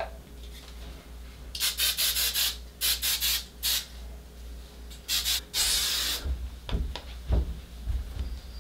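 Aerosol hair-product can sprayed in a series of short hissing bursts, about five in all, the last the longest.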